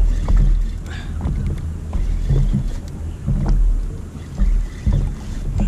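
Rumbling, pulsing background noise from a microphone with water in it, aboard a small inflatable boat, with irregular knocks and crackles.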